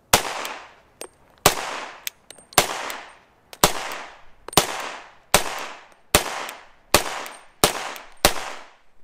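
Ten pistol shots from a SIG Pro SP2340 firing .357 SIG through a conversion barrel, about one a second and a little quicker toward the end, each followed by a brief echo. Faint small clicks come between the shots.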